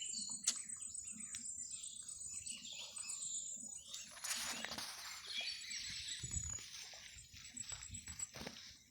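Small birds chirping in scattered short calls, with a brief rustling noise about four to five seconds in.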